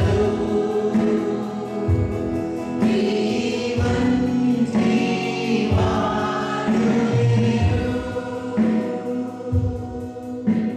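A choir and congregation singing a worship song with instrumental accompaniment.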